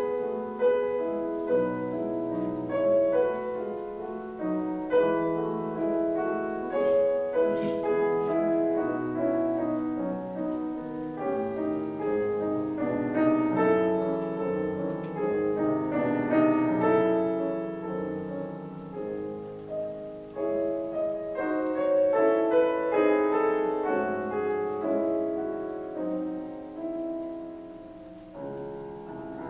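Steinway concert grand piano played solo in a classical piece: a continuous flow of notes and chords that swells and ebbs, growing softer near the end.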